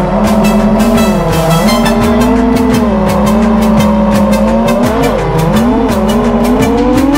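FPV freestyle quadcopter's motors and propellers whining, the pitch dipping and swelling with the throttle and climbing steadily near the end.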